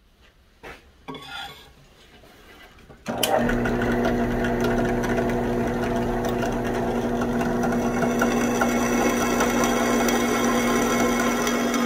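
Two light knocks, then about three seconds in a drill press starts running suddenly with a steady hum. Its twist bit cuts into a leaf-spring steel knife blank with a steady grinding hiss as curled chips come off.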